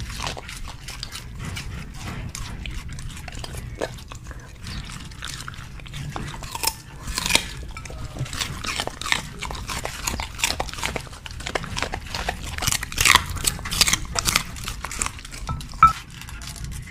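Two dogs biting and chewing raw cabbage leaves held out by hand: irregular crisp crunches and wet chewing, sparse at first and growing denser and louder about halfway through.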